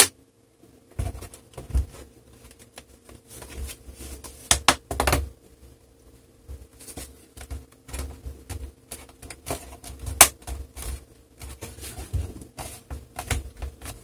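Plastic clips of a Dell Inspiron 3793 laptop's case snapping into place as hands press around its edges: an irregular string of sharp clicks and softer knocks, with a loud click right at the start.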